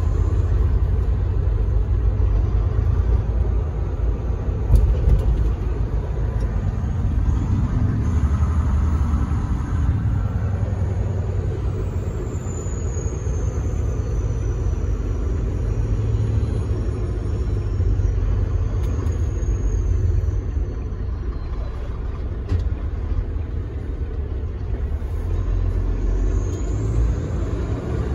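Cab interior noise of a Volvo semi truck cruising at highway speed: a steady low rumble of the diesel engine and tyres on the road. A faint high whine glides down briefly about twelve seconds in.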